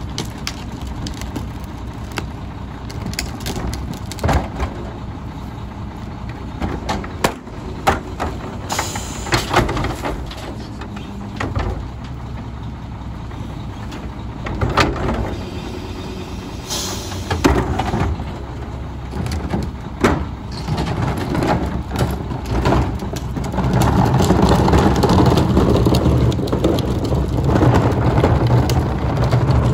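Heil 5000 rear-loader garbage truck working at the curb: its diesel runs steadily while plastic yard-waste carts clank against the rear and the cart tipper dumps them, with two short air hisses along the way. The truck runs louder for the last few seconds.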